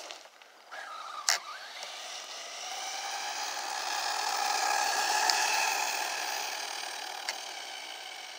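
Arrma Typhon 6S RC buggy running on a 5S pack, its brushless motor and drivetrain whining steadily, growing louder to a peak past the middle and then fading. A single sharp click comes about a second in.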